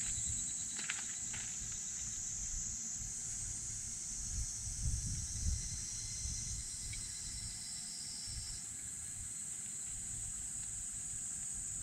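Steady high-pitched drone of insects calling in summer vegetation, with a second insect joining in briefly past the middle, over a low rumble.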